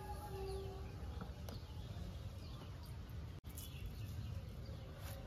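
Faint outdoor background with small birds chirping in short falling notes over a low steady rumble.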